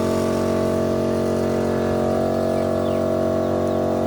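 Air compressor running with a steady, even hum, inflating a tyre that had lost its air.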